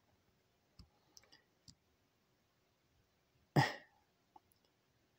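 A few faint clicks, then one short cough-like sound from a man about three and a half seconds in.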